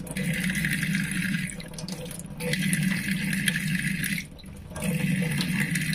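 Kitchen tap running, its stream splashing over a cupped hand and into a stainless steel sink while a few grains of rice are rinsed. The splashing dips briefly about two seconds in and again just after four seconds.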